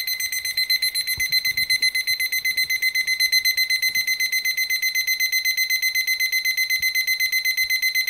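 La Crosse Technology 617-1485B atomic alarm clock's alarm sounding: a high-pitched electronic beep repeated very rapidly and evenly. This is the alarm's late, fastest stage, nearly a minute into a pattern that speeds up from single to double to triple beeps.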